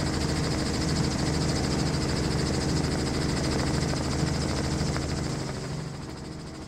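Steady engine and rotor noise of an aircraft in flight, with a slight pulsing, fading out over the last second or so.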